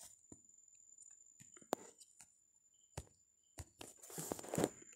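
Faint room sound during a pause: a few soft isolated clicks and a short rustle near the end, over a faint high-pitched steady whine.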